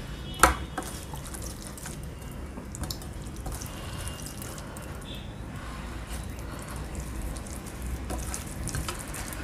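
Fingers mixing rice into curry gravy on a steel plate, with scattered wet squelches and small smacks. A sharp click sounds about half a second in.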